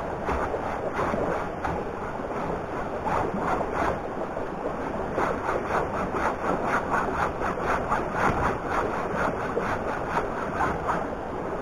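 Hand saw cutting through a wooden log in rhythmic back-and-forth strokes, each stroke a rasp of the teeth through the wood.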